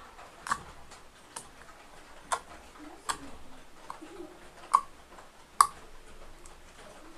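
Clear slime being pressed and poked by fingers in a bowl, giving short, sharp wet clicks and pops, about seven of them at uneven intervals.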